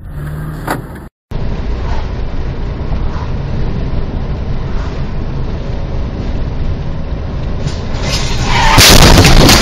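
Steady road and engine rumble inside a moving car, recorded by its dashcam. Near the end a much louder harsh noise swells up as two cars collide ahead.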